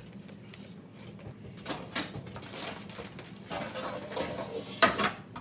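Groceries being handled and packed into a freezer: scattered rustles and light knocks, then a couple of sharper knocks near the end.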